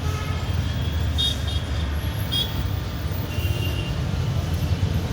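Steady low background rumble, with a few short high bird chirps about one, two and a half and three and a half seconds in.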